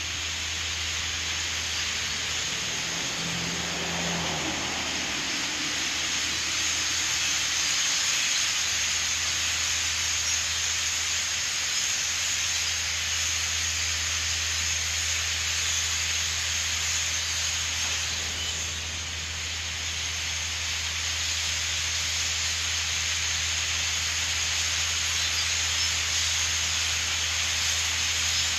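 A huge flock of European starlings passing overhead, thousands of calls blending into a steady, dense hiss.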